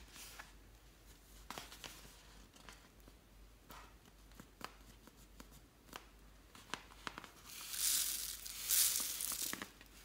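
Pink inflatable vinyl crab toy handled with plastic crinkles and clicks, then a loud rustling hiss in two waves near the end as its load of star-shaped glitter pours out onto the slime.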